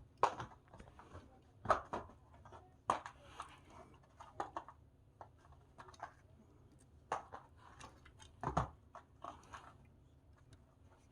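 Irregular soft thumps, taps and rustles of a cat at play, jumping and landing, with a few heavier thuds among lighter knocks.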